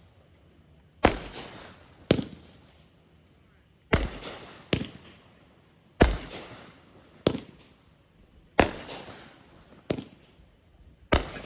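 Consumer fireworks going off: nine sharp bangs, roughly one every second or so, each trailing off in an echo.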